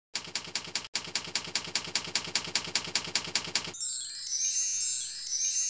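Logo sound effect: rapid, even typing clicks, about eight a second, as the letters appear. About three and three-quarter seconds in they give way to a bright, shimmering chime over a low hum.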